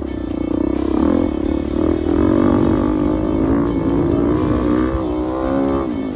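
Dirt bike engine running under load as it rides the track, its pitch wavering with the throttle, climbing steadily near the end and then dropping off.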